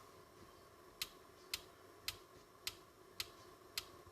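Rotary selector knob on a Midland Alan 78 Plus CB radio being turned step by step: six light detent clicks about half a second apart, starting about a second in.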